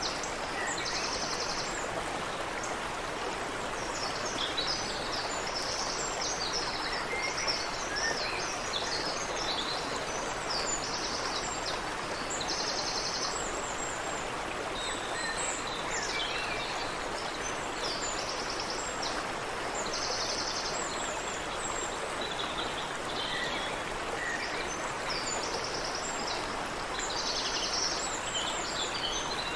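Creek water running steadily, with birds calling above it. One bird gives short rapid trills, repeated every few seconds.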